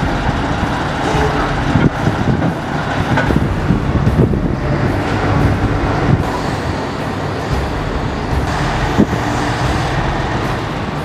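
Crane truck's engine running steadily at a low rumble, with a few short knocks about two seconds in and again near the end.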